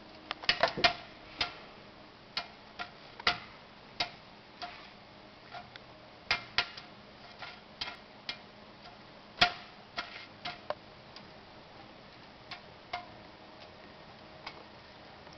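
Irregular light metallic taps and clicks with a short ring: a cat's paw knocking against a stainless steel sink as it bats at a thin trickle from the tap. The taps come often for the first ten seconds, then thin out to a few.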